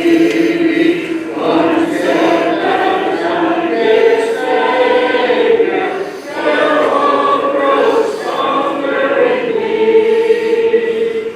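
Church congregation singing a hymn a cappella, many voices together in sustained sung phrases.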